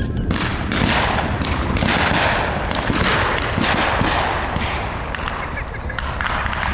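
Scattered shotgun shots from many hunters at a driven pheasant hunt, a string of sharp pops over a steady rushing noise.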